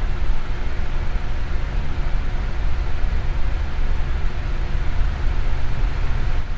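Electric fan blowing steadily: a constant whooshing rush of air with a low rumble and a faint motor hum beneath it.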